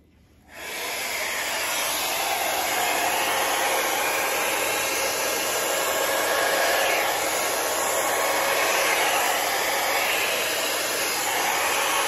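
Handheld hair dryer switched on about half a second in, then blowing a steady rush of air onto wet poured paint to spread it outward.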